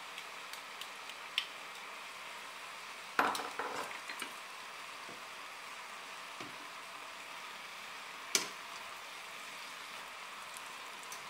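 Noodles and vegetables sizzling in a frying pan as they are stir-fried, a steady frying hiss. A few sharp knocks cut in: a small one early, the loudest about three seconds in with a brief ring after it, and another about eight seconds in.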